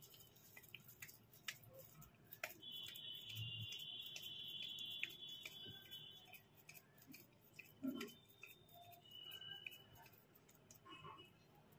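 Faint soft clicks and pats of hands shaping and smoothing minced meat around an egg, with one louder knock about eight seconds in. A faint steady high tone sounds for about four seconds.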